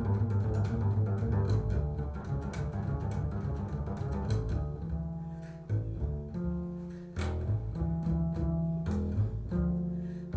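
Unaccompanied double bass played pizzicato: a quick, dense run of low plucked notes for about the first four seconds, then slower single notes that ring on.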